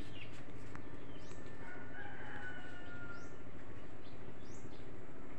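A rooster crowing once about two seconds in, one long drawn-out call, with small birds chirping briefly here and there.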